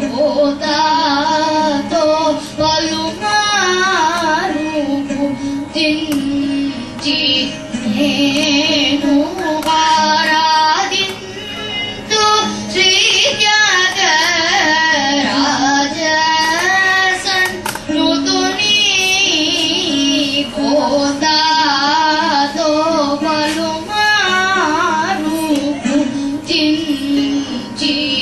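A boy singing a Carnatic song into a microphone, his line full of wavering, ornamented turns in pitch over a steady drone, with short breaths between phrases every few seconds.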